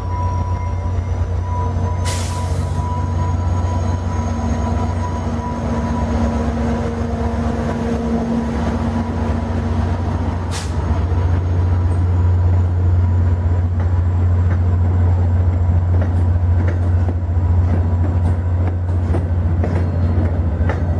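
Sound decoder of an HO scale Rapido F-unit diesel model playing a turbocharged diesel engine under way as the train departs, a steady low drone with a thin high whine, together with the model's wheels rolling on the track. A short hiss about two seconds in and a sharp click about ten seconds in; the sound grows a little louder about halfway as the coaches pass close by.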